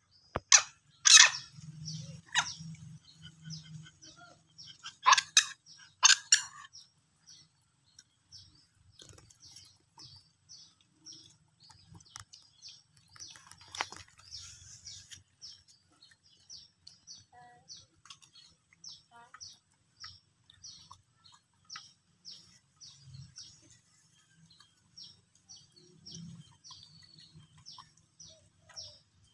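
Small birds chirping: short high chirps repeating a few times a second, with several louder, sharper sounds in the first seven seconds.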